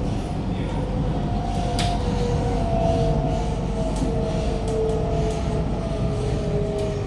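Inside a Kawasaki-CSR Sifang C151A metro car running on its track: a steady rumble of wheels on rail with a motor whine slowly falling in pitch, and a few sharp clicks from the track.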